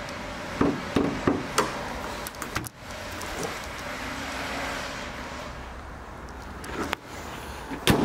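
Bonnet of a Mazda CX-5 being worked: a few sharp clicks of the bonnet catch as it is released and lifted, then a loud thud near the end as the bonnet is dropped shut.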